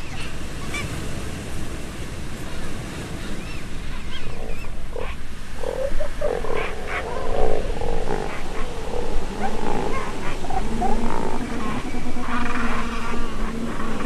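King penguins calling, their pitched, wavering calls starting about five seconds in and thickening toward the end, over a steady wash of surf and wind.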